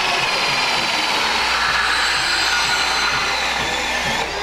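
DEWALT DCS371 20-volt cordless band saw running and cutting through a metal pipe, a steady high-pitched whine and rasp of the blade in the metal. It eases off a little near the end.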